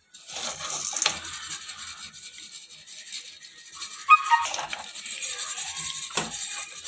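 Perforated steel strainer scooping and scraping roasted chickpeas through hot salt in a metal kadai: a continuous gritty rustle with small rattles. About four seconds in, a pet animal gives a short whining cry.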